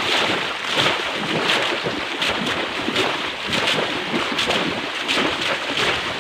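Shallow water splashing and sloshing in repeated strokes, roughly one to two a second, from men wading and plunging bamboo polo fish traps into the river.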